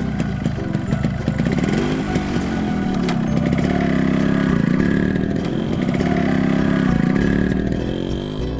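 Motorcycle engine sound effect revving, its pitch rising and falling several times, louder in the middle.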